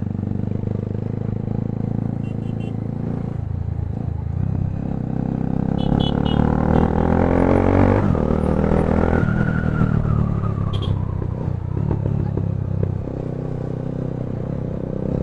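Bajaj Pulsar 220's single-cylinder engine running through an aftermarket Akrapovic carbon slip-on exhaust while the bike is ridden. Its note rises as it accelerates from about five seconds in, then drops suddenly at about eight seconds.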